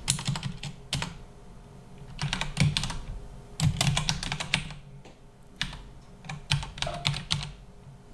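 Computer keyboard keys clicking as someone types a command, in several short bursts of keystrokes with brief pauses between them.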